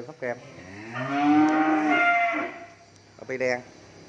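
Young beef cattle mooing: a short call at the start, then one long moo lasting about a second and a half that rises in pitch and holds, and another short call near the end.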